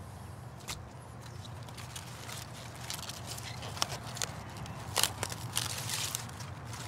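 Crisp romaine lettuce leaves snapping and rustling as they are broken off the plant by hand: a run of sharp cracks that comes thickest between about three and six seconds in, loudest about five seconds in.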